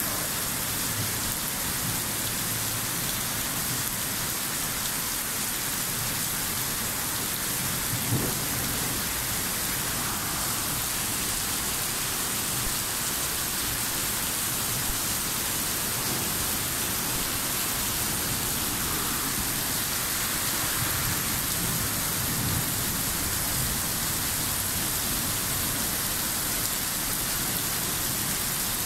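Heavy rain pouring down on a city street, a steady, even hiss, with low rumbles of thunder now and then and a short thump about eight seconds in.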